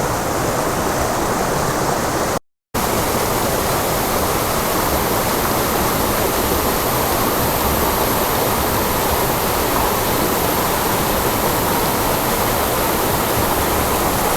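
Waterfall pouring steadily, a dense even rush of water. It cuts out for a moment about two and a half seconds in, then carries on.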